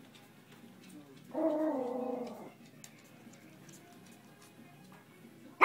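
Papillon dog giving one drawn-out, pitched growl lasting about a second, then a single sharp bark right at the end.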